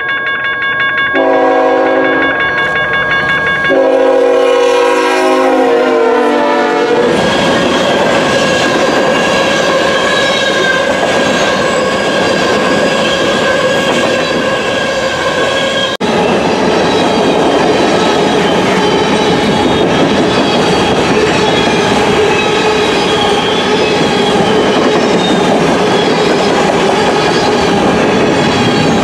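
Freight locomotive's multi-chime air horn blowing in long blasts as the train comes on, its chord falling in pitch at the end of the last blast. Then the steady rumble and clickety-clack of covered hopper cars rolling past.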